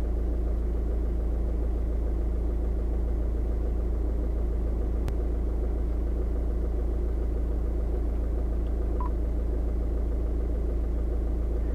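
Skoda Octavia Mk2's engine idling, heard from inside the cabin as a steady low hum.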